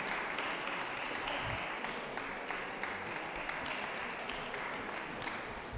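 Audience applauding, a dense patter of many hands clapping that dies away at the very end.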